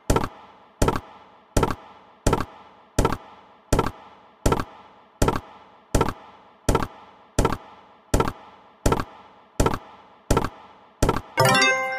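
Online video slot's reel sound effects on autoplay: a short thud about every three-quarters of a second as spin after spin starts and stops, with a brief chiming jingle near the end.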